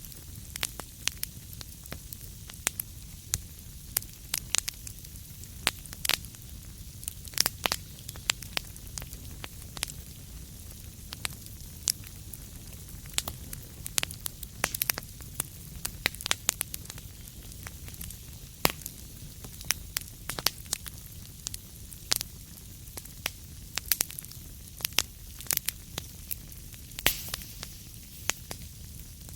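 Wood fire crackling in a fireplace: irregular sharp pops and snaps over a steady low rumble and soft hiss.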